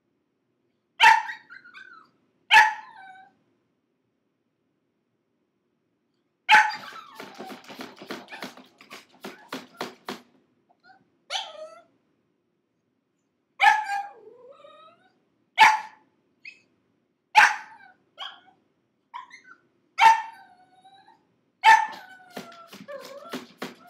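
A six-month-old pug puppy shut in a plastic crate, barking and yelping in protest at being confined. Sharp barks come about every two seconds, some trailing off into a falling whine, with a quicker flurry of yaps about seven to ten seconds in.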